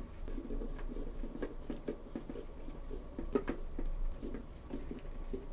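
Faint, irregular small clicks and taps of carbon-fibre drone frame plates being handled and pressed together on a wooden tabletop.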